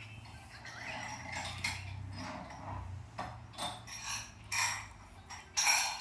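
A newborn baby hiccuping: about six short, sharp hics at irregular intervals, the loudest near the end.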